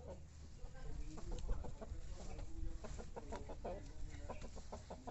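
Chickens clucking: a run of short, quick calls, thickest through the middle.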